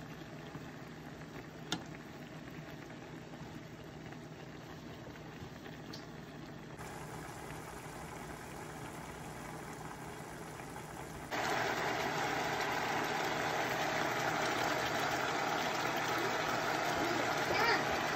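Chicken pieces simmering in a ketchup sauce in a frying pan, the sauce bubbling steadily; the bubbling gets suddenly louder in two steps, about seven and eleven seconds in. A single click near two seconds in.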